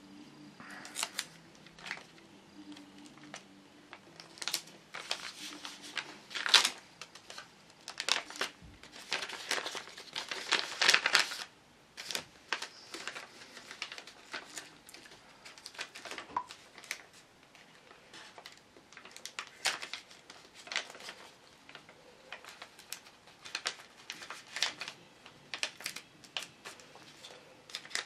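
Folded sheet of paper being handled and pressed by hand: short crinkles, rustles and clicks, with a longer stretch of rustling about ten seconds in.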